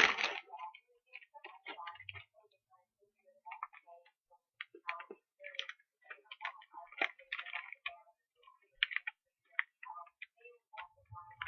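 Faint, irregular little crackles and clicks from eating a popping-candy Oreo: the candy popping and the cookie being chewed, close to the microphone.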